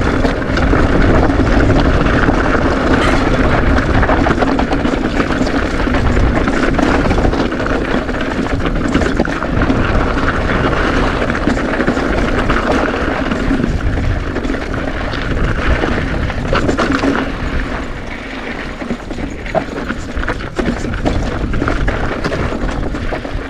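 Mountain bike rolling over rough dirt trail, with wind rumbling on the microphone and scattered clicks and rattles.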